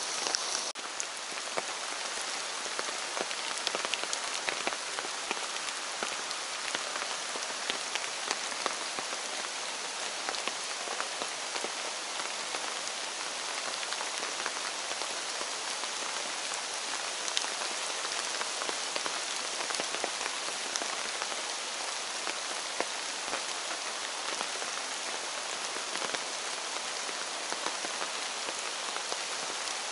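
Steady rain falling on forest leaves, with many separate drops ticking.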